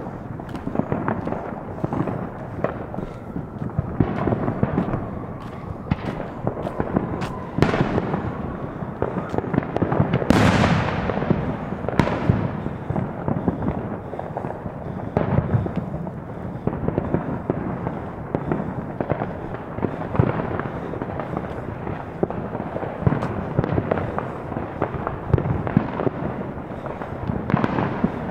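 Fireworks and firecrackers going off all around, near and far: a continuous crackle of pops and bangs, with a louder burst about ten seconds in.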